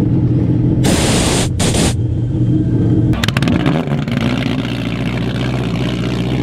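Jet ski engine running, with two short, loud hissing blasts about one and two seconds in. It then settles into a steady low-speed drone as the craft moves off across the water.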